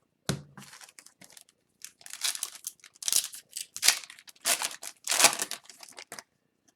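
A trading-card pack wrapper being torn open and crinkled in a run of crackly bursts, after a single thump about a quarter second in.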